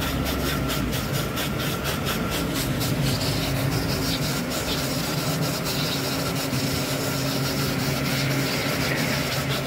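A small engine running steadily with a low hum, over a rough scratchy rubbing noise.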